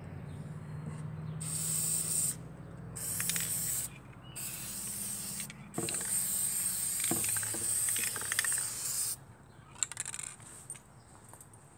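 Aerosol spray-paint can spraying in four bursts, the last and longest about three seconds, with a couple of light knocks in between.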